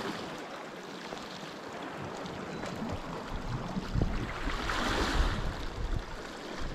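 Wind gusting on the microphone over the wash of sea surf on the shore. The surf swells louder about five seconds in.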